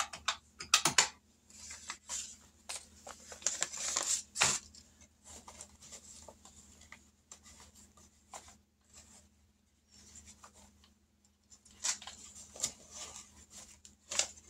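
Paper bills and envelopes being handled: irregular rustling and crinkling as cash is taken out of a small envelope and counted, with a few louder crinkles.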